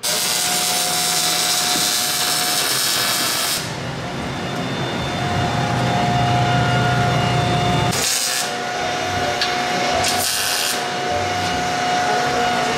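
Power tools working on steel exhaust tubing: a harsh, continuous cutting noise that starts abruptly and is loudest for the first few seconds, then carries on lower, with two short hissing bursts about eight and ten seconds in.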